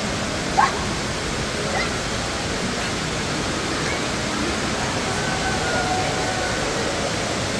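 A multi-storey indoor waterfall: water falls in strands down a tall wall into the pool below, making a steady rushing hiss. A brief high sound cuts through about half a second in.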